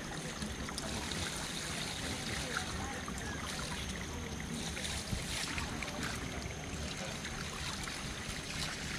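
Water pouring from a spout into a stone fountain basin, a steady running splash.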